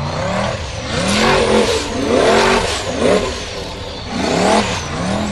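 Formula Offroad buggy's engine revving hard under load on a steep dirt climb, in about four separate rising and falling surges.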